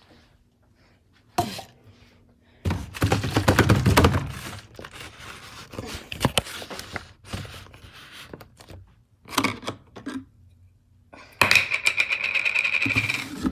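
Kitchen clatter while cooking: a run of knocks and thunks of things being handled and set down. There is a busy burst about three seconds in and another loud, dense stretch near the end.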